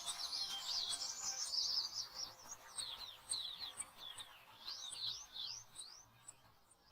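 Small songbirds chirping: a dense, busy twittering that thins out to separate quick, high chirps and fades away near the end.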